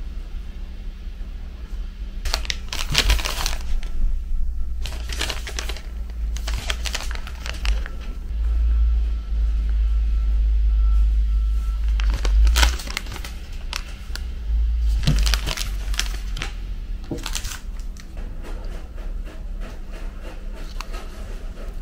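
Foil drip-coffee bag packets and clear plastic candy wrappers crinkling as they are handled, in several short bursts over a steady low rumble.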